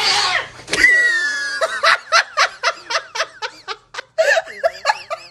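A person laughing hard in a fast run of short pitched bursts, about three to four a second, after a brief noisy rush at the very start.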